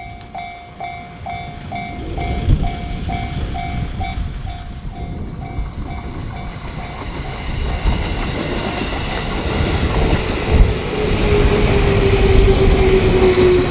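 Japanese level crossing warning bell ringing about twice a second, dying away about halfway through, while a JR Shinetsu Line train approaches with a growing rumble and wheel clatter. Near the end a steady whine slowly falls in pitch as the train comes through.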